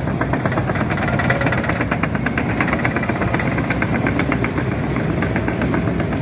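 Heavy diesel construction machinery running under load, a steady engine hum with a fast, even metallic clatter over it.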